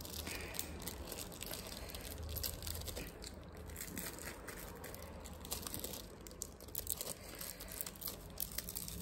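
Melted fruit roll-up being peeled off its plastic backing sheet: faint, irregular crinkling and tearing of the film in many small crackles.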